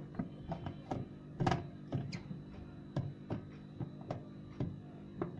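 Plastic knocks and clicks, irregular, about one or two a second, as a part is pushed and hooked into place in a mini washing machine's spin dryer, over a steady low hum.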